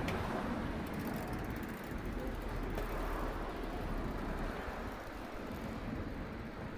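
Steady outdoor background rumble with no distinct events, like distant traffic heard through a security camera's microphone.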